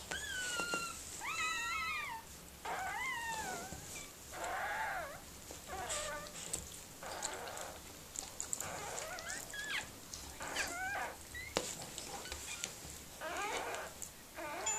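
Newborn puppies crying: a string of short, high, wavering squeals, roughly one a second.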